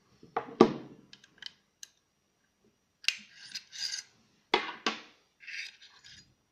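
A Powerfix Profi hand staple gun being handled and reloaded with metal staples: two sharp clicks about half a second in, then rattling and scraping of a staple strip against the metal tool, two more sharp clicks about four and a half seconds in, and more sliding rattle near the end as the strip goes into the magazine.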